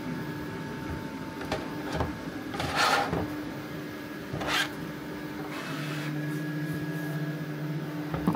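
3D printer running a print, its stepper motors giving a steady whir of pitched tones that drops to a lower pitch about five and a half seconds in, with two short rushing sounds in the middle.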